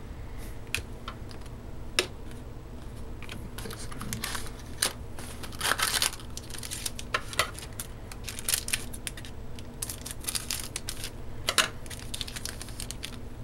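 The wrapper of a hockey trading-card pack crinkling and tearing as it is opened and handled. Irregular rustles, busiest about halfway through, come with a few scattered sharp clicks.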